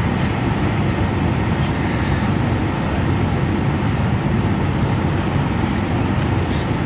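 Steady low engine rumble of fire trucks idling and pumping water for the hoses, with a few faint ticks over it.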